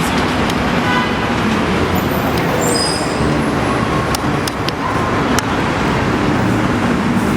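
Steady city street traffic noise from passing vehicles, with a few sharp clicks in the middle.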